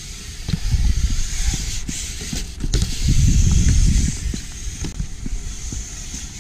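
BMX bike riding concrete skatepark ramps: the tyres' rolling rumble swells twice, about a second in and again around three to four seconds in, with scattered sharp knocks from the bike on the concrete and a steady hiss throughout.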